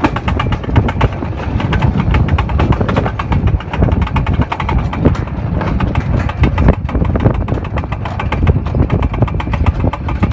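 Alpine coaster sled running fast down its steel rails: a loud low rumble with rapid rattling clicks from the wheels on the track.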